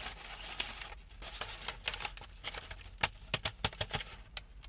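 Paper packaging of a fried pumpkin cream pie being torn open and handled: rustling and crinkling with a run of sharp crackles about three seconds in.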